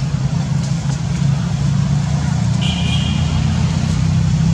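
A motor vehicle's engine running with a steady low hum. A brief high chirp sounds a little under three seconds in.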